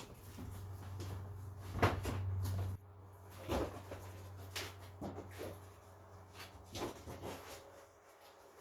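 A series of short knocks and clunks from objects being handled and set down, over a low hum that cuts off about three seconds in.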